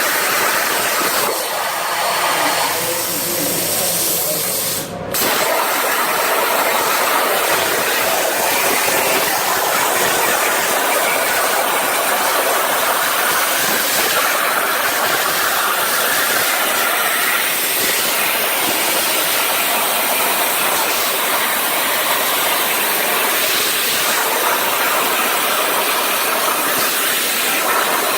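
CNC machine running, a steady loud hissing machine noise that breaks off briefly about five seconds in and picks straight up again.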